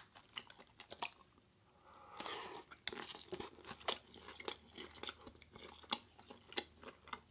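Close-miked biting and chewing of a loaded Dorito-style tortilla chip: irregular, sharp crunches and crackles, densest about two seconds in.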